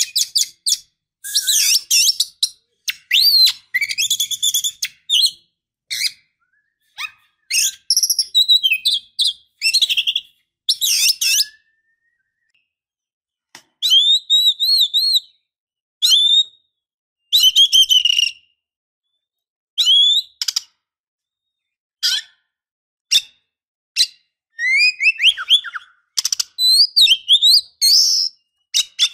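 Oriental magpie-robin singing: phrases of clear rising and falling whistles mixed with harsher scratchy chatter, broken by short silent gaps and one longer pause near the middle.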